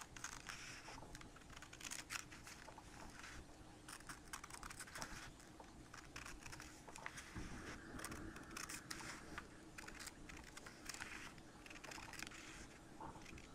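Scissors cutting along a crease in a sheet of printer paper: a faint, continuous run of small snips and crisp paper crunching.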